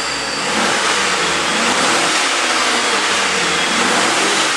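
A fully warmed-up Chevrolet 5.3 L LM7 V8 (iron block, aluminum heads) in a 2001 Suburban, revved up and held at about 3,000 rpm, heard from inside the cab. It gets louder over the first half-second or so, then holds steady.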